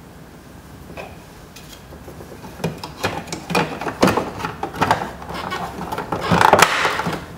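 Quick clicks, taps and rattles of hands working on a plastic car door trim panel around the handle and window-switch area. The clicks are sparse at first, grow dense about halfway through, and end in a louder rattling scrape near the end.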